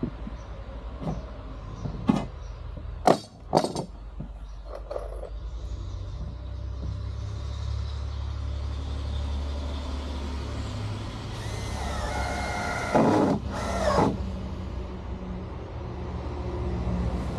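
A few sharp knocks, then a heavy vehicle's engine rumbling low and building. Near the end come a brief squeal and two hissing blasts typical of air brakes.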